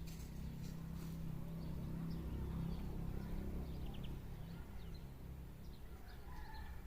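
Outdoor nature ambience: a steady low rumble with faint, short bird chirps, and a held high tone that comes in near the end.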